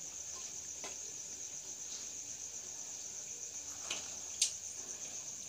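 Steady high-pitched insect trilling, with two short clicks about four seconds in, the second sharper.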